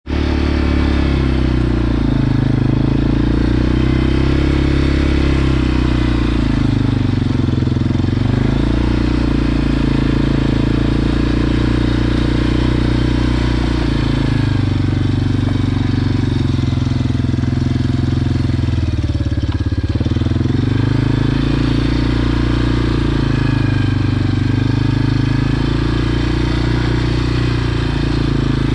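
Quad (ATV) engine running steadily, its pitch rising and falling with the throttle.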